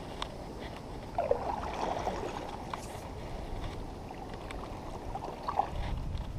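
Water sloshing and splashing around a kayak, with a few faint clicks.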